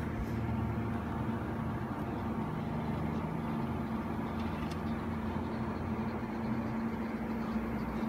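Shell BMW M4 toy remote-control car playing a steady, low engine-running sound effect.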